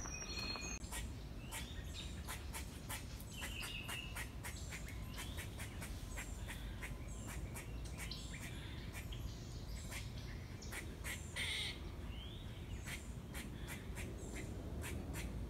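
Wild birds chirping and calling in woodland: short high chirps and whistles with many scattered sharp clicks, over a steady low rumble, and one louder call about two-thirds of the way through.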